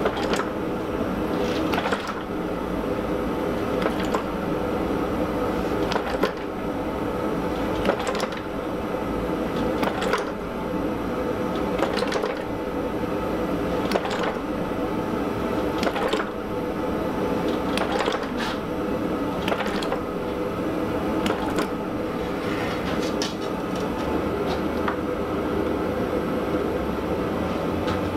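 Massey power hammer running with a steady hum, its ram striking the hot sword-blade steel in single blows about every two seconds.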